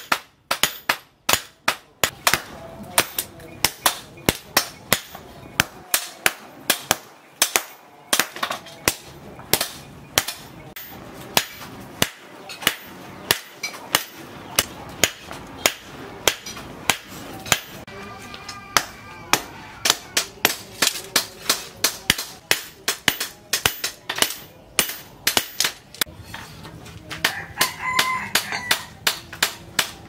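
Hammer blows on a red-hot machete blade being forged from plough-disc steel on an anvil: sharp metal-on-metal strikes in a quick, steady rhythm of about two blows a second.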